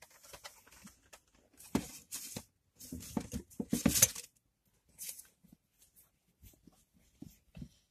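Rustling and scraping of merchandise being handled: a carded toy put down and a folded black t-shirt pulled out and held up. The rustles come in irregular bursts, loudest about halfway through, followed by a few light knocks.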